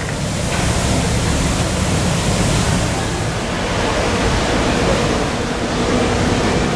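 Steady rushing noise of busy city street ambience with passing traffic, with a faint engine hum near the end.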